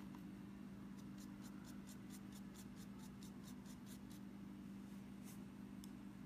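Faint brush strokes on paper: a paintbrush worked back and forth over soft pastel to wet and blend it, a quick run of light strokes about four a second, over a steady low hum.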